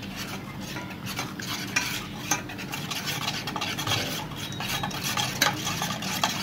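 Steel spoon stirring grape juice and cooked grapes in a stainless steel saucepan: steady liquid swishing, with a few light clinks of the spoon against the pan.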